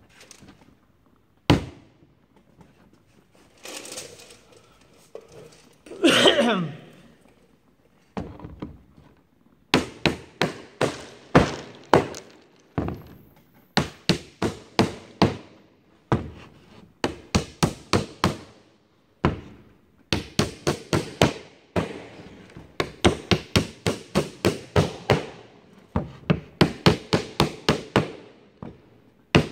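Small hammer driving tacks through new planking into a wood-and-canvas canoe hull, in quick runs of sharp light taps with short pauses between runs, starting about ten seconds in. Before that there are a few single knocks, and about six seconds in a short sound slides down in pitch.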